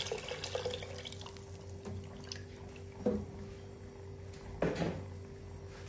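Water poured from a cup into a pot onto fried meat, splashing and tailing off within the first second, then a silicone spatula stirring the broth with a few short scrapes and knocks against the pot. A steady low hum runs underneath.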